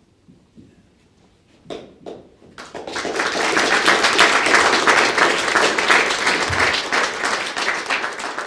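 Audience applauding: a couple of scattered claps, then the whole room breaks into steady applause about two and a half seconds in.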